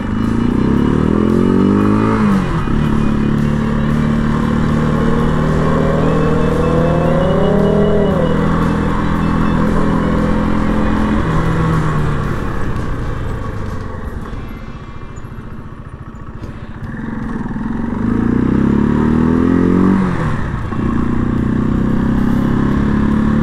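Janus Phoenix 250's single-cylinder engine pulling away and running up through the gears: its pitch climbs and drops back at each shift. Around the middle it eases off to a low putter, then pulls away again through two more shifts.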